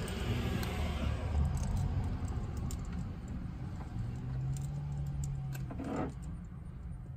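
Light clicks and rattling of insulated wires being handled against the truck's metal underbody, over a low rumble. A low hum comes in for a couple of seconds in the second half, and there is a brief scrape or rustle just before the end.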